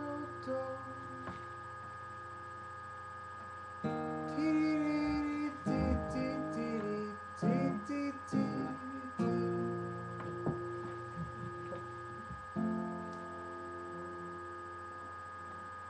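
Acoustic guitar strummed in rhythmic chords, lighter for the first few seconds and then strummed harder from about four seconds in.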